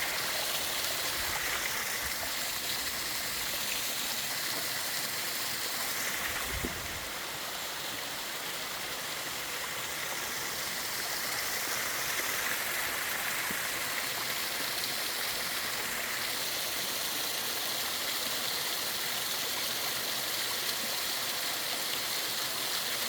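Mountain stream running over rocks: a steady rush of water, with a brief low bump about six seconds in.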